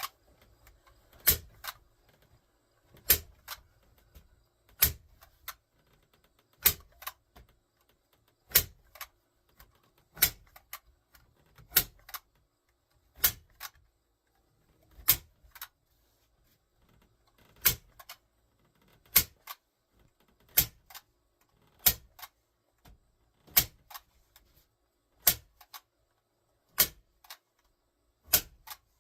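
Staple gun firing staples one at a time through a rubber-backed carpet piece into wood, a sharp snap about every one and a half to two seconds, many followed by a softer click.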